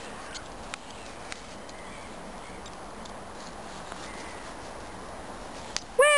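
A steady outdoor hiss with a few faint crunches of footsteps in snow. Near the end a person starts a loud, high-pitched call.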